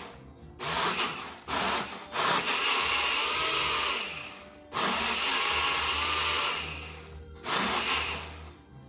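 Small personal bottle blender pulsed in about five bursts of half a second to two and a half seconds each, each cut off sharply, blending ripe mango.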